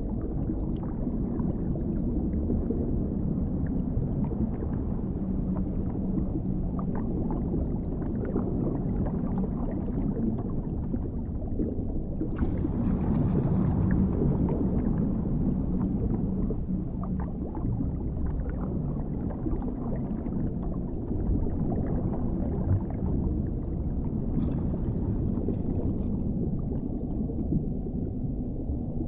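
Underwater ambience: a steady, muffled low rumble of water with faint scattered ticks. A brighter, hissier stretch swells up about twelve seconds in, and a shorter one comes near the end.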